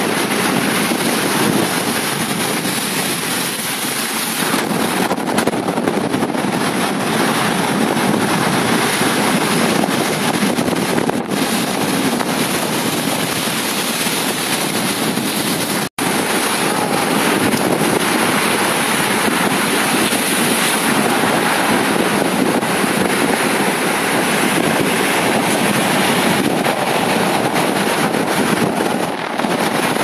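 Heavy storm surf breaking and foaming over a rocky shore, with strong wind rushing over the microphone: a loud, steady wash of noise. It cuts out for an instant about halfway through.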